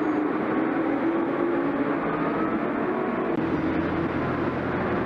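Racing kart engines running together, a steady mix of small engines whose pitch wavers up and down. A lower steady hum joins about three and a half seconds in.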